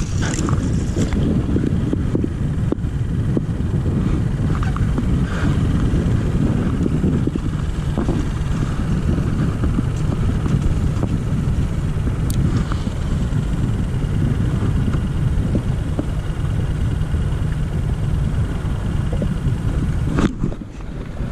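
Steady wind rumble buffeting the microphone on an open kayak, a low, even roar that dips briefly near the end.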